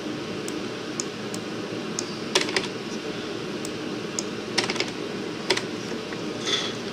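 Computer keyboard keys pressed one at a time, a dozen or so separate, irregularly spaced clicks over a steady background hum.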